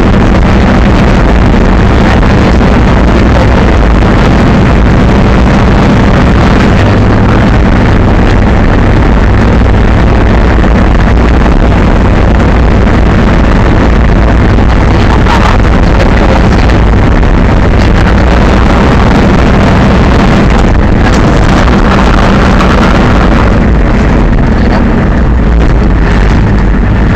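Monster truck engine running loud and steady with a deep rumble while the truck drives over a dirt track, heard from inside the cab.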